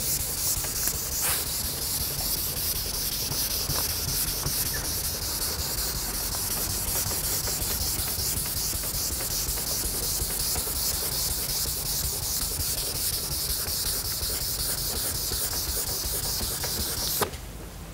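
1500-grit sandpaper on a soft foam palm block wet-sanding a car's painted hood by hand, straight back-and-forth strokes with light pressure: a steady high-pitched hiss with a faint stroke-by-stroke rhythm. It stops abruptly near the end.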